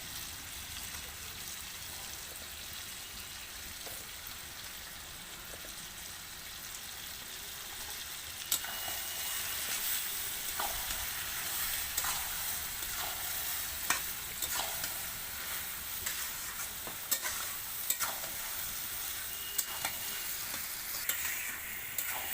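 Chicken pieces sizzling as they fry in oil and onion-spice masala in a pan. From about a third of the way in the sizzle gets louder and a spatula stirs and scrapes, with repeated sharp knocks against the pan.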